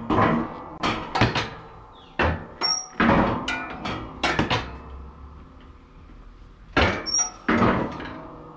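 A run of sharp metal clanks and knocks, some with a short high ring, from the snow plow and its lift linkage on a 2000 Polaris Sportsman 335 ATV being worked. There is a pause of about two seconds, then two last clanks near the end.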